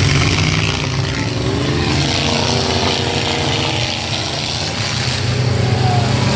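Engines of full-size demolition derby pickup trucks running hard, with a steady low rumble; one engine revs up about a second and a half in and holds.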